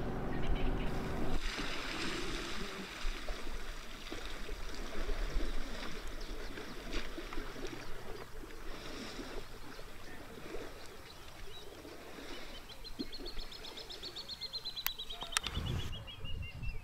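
African elephants wading and splashing in a waterhole, water sloshing and dripping. In the second half a bird sings a long trill of rapid notes that falls steadily in pitch.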